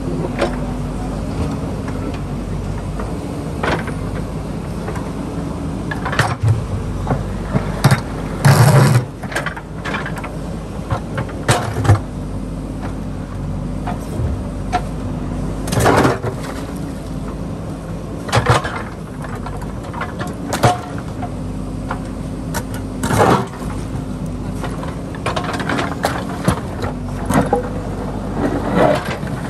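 JCB backhoe loader's diesel engine running steadily under load while the steel bucket works a large boulder and river stones. Sharp knocks and scrapes come every few seconds, the loudest about eight to nine seconds in.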